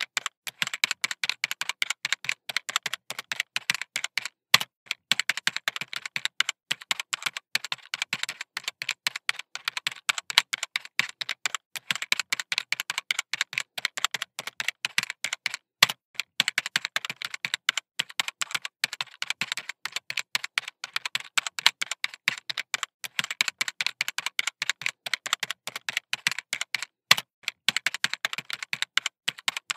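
Fine-tip pen tapping and scratching on sketchbook paper in rapid, irregular clicks as small circles are drawn one after another, with an occasional louder click.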